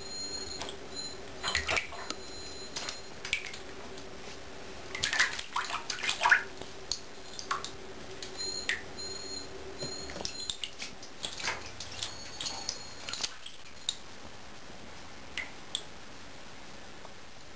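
A cat's paws splashing in shallow bathtub water as it swats at goldfish: irregular small splashes and drips, with a louder cluster about five to six seconds in.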